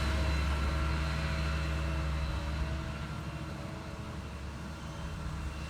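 Potato-harvesting farm machinery's engine running steadily with a low hum, slowly growing fainter.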